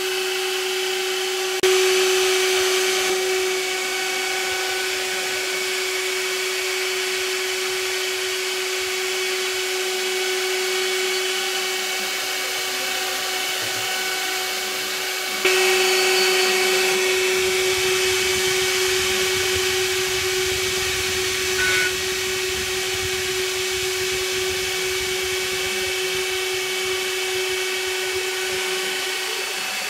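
A CNC router spindle runs with a steady whine while its bit mills a wooden pattern. The cutting noise jumps louder twice, about two seconds in and again about halfway through, and eases back each time.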